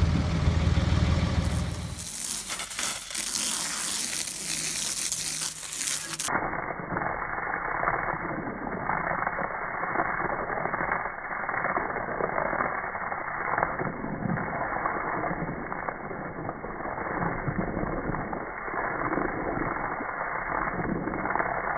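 Water spray hitting a muddy core aerator, washing mud off its wheels and housing: a steady hiss. A low engine hum sounds for the first couple of seconds.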